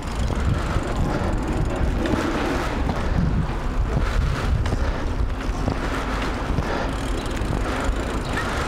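Wind buffeting the microphone of a camera on a moving bicycle, over a steady low rumble of tyres on the road.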